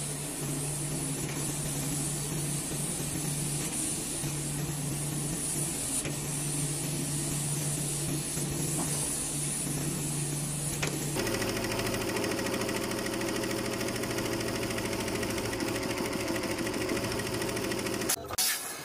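Laser cutting machine running: a steady hum with a high hiss. About 11 seconds in it gives way to a multi-head embroidery machine stitching, a rapid, even clatter.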